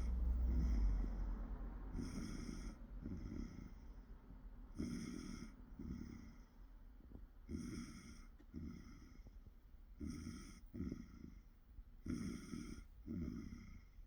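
A person snoring in a regular rhythm, a rasping snore followed each time by a shorter, duller one, the pair repeating about every two and a half seconds. A low rumble sits under the first second.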